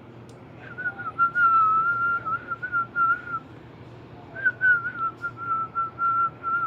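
A person whistling idly, a wobbling, nearly level tune in two phrases with a short break just past the middle.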